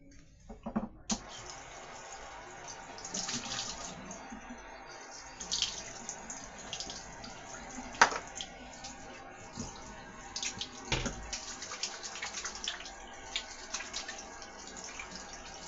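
Kitchen tap running water into a sink, with scattered clinks and knocks from handling in the sink, as chicken is rinsed off.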